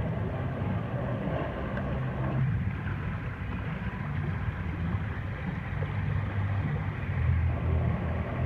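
Steady rushing water of a water-park rapids river, a low rumbling noise that thins a little about two and a half seconds in.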